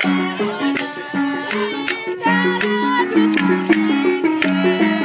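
Hand-held rattles shaken in a steady rhythm, together with women singing over a repeating melody of short, stepped notes.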